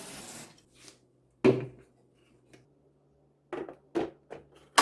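Water running from a tap stops shortly after the start as the espresso machine's water tank is filled. A sharp knock follows about a second and a half in, then a run of short clicks and knocks, the last one loud, as the tank is handled and fitted back into the machine.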